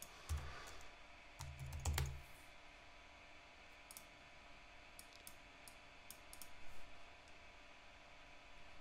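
Quiet typing on a computer keyboard with mouse clicks: a few soft thumps in the first two seconds, then scattered single keystrokes.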